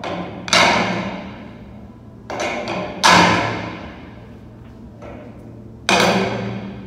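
Hanging gym rings knocking and clanking against a steel overhead rig as a climber swings from ring to ring. There are five sharp knocks at uneven intervals, each ringing out for about a second, over a low steady hum.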